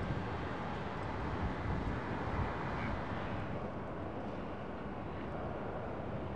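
Airbus A321neo's jet engines at takeoff thrust as the airliner rotates and lifts off, heard as a steady, even rumble.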